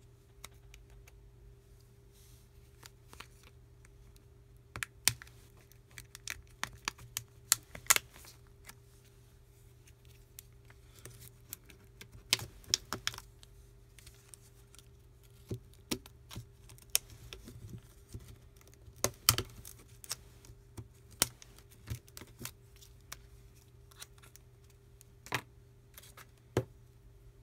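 Scattered sharp clicks and taps, coming in small clusters, of a metal pry tool and plastic phone parts as a Samsung Galaxy S4 with a cracked screen is worked open by hand. A faint steady hum runs underneath.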